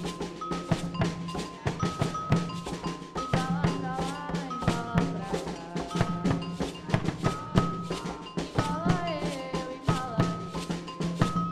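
Percussion ensemble playing drums in a steady, dense rhythm, with a pitched melody line over it.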